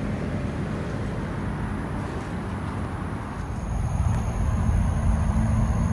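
Steady low outdoor rumble with no distinct events, getting louder about four seconds in.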